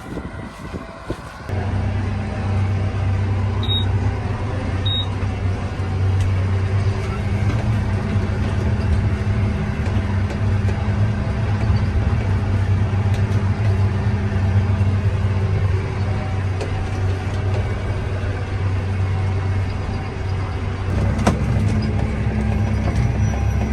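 Tractor engine running steadily under load while pulling a round baler, coming up to a steady working hum about a second and a half in.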